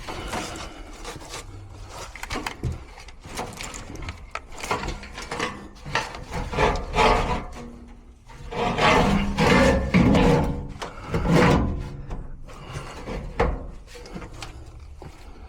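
Blower motor being forced into a furnace blower housing: irregular scraping and rubbing of metal parts with scattered knocks, loudest in a few surges about two-thirds of the way through.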